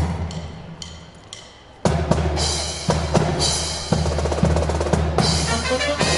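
Marching band drum line playing a cadence on bass and snare drums: the drumming dies away for about a second and a half, then comes back in loudly about two seconds in and goes on in a steady beat.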